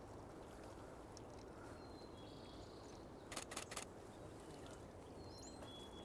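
Quiet marsh ambience with faint, distant bird calls, broken a little past halfway by a quick run of about four sharp clicks, a camera shutter firing a short burst.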